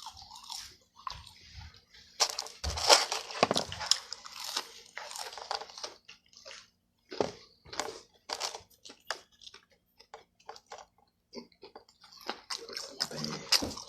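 A person biting and chewing crunchy food close to the microphone: irregular crunches and mouth clicks, with short pauses.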